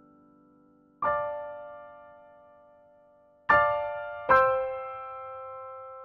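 Background music: slow solo piano playing sparse chords. One chord is struck about a second in and two more come close together past the middle, each left to ring and fade.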